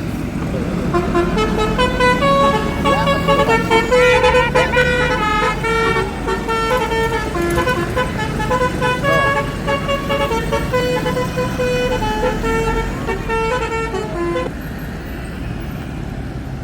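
A tour bus's telolet basuri horn, a multi-trumpet musical air horn, playing a tune of held notes that step up and down in pitch. It starts about a second in and stops a little before the end, over a steady low rumble.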